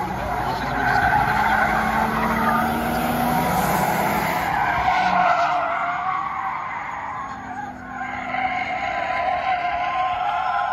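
Car tyres squealing as a station wagon and a sedan slide in circles on asphalt, engines revving under throttle; the squeal eases briefly about seven to eight seconds in, then picks up again.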